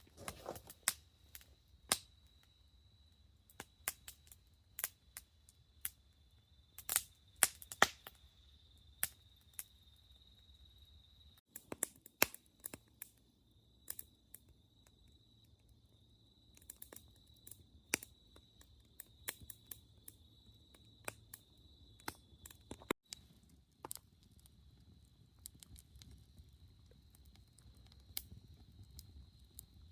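Wood campfire crackling: irregular sharp pops and snaps, a few much louder than the rest, over a steady thin high tone.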